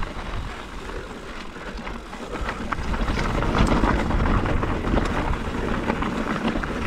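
Wind rushing over the microphone and mountain bike tyres rolling over a loose gravel dirt track, with scattered clicks and rattles; the noise grows louder a couple of seconds in.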